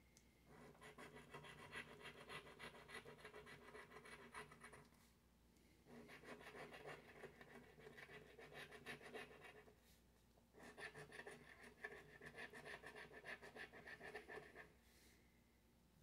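Three spells of faint, rapid scratching, each a few seconds long with brief pauses between: the scratch-off coating being rubbed off a paper lottery ticket, one bonus spot after another.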